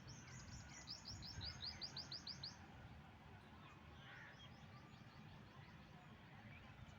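A small songbird singing a quick trill of short, high, downward-slurred notes, about five a second for two and a half seconds, then a fainter repeat of the trill midway. A low, steady outdoor rumble runs underneath.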